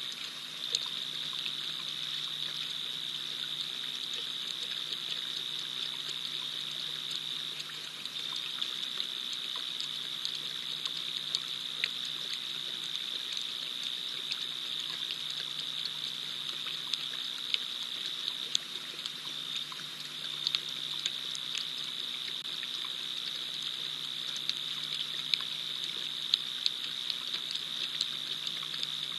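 Steady chorus of night insects, a constant high-pitched drone over a soft hiss, with scattered faint clicks.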